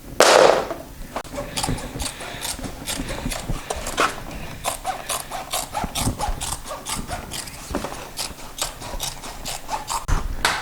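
A loud swish right at the start, then quick, irregular scraping and rubbing strokes, like a hand tool or hands working a material back and forth.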